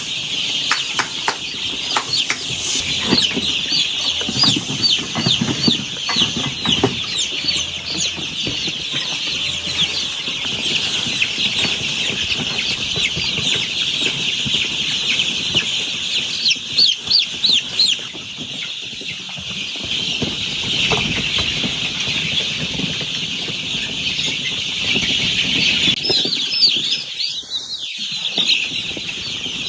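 A brooder full of young chicks peeping continuously: many high, short, falling peeps overlapping at once.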